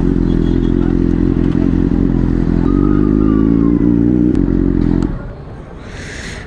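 Superbike engine running loud and steady under way, cutting off abruptly about five seconds in, leaving quieter background noise.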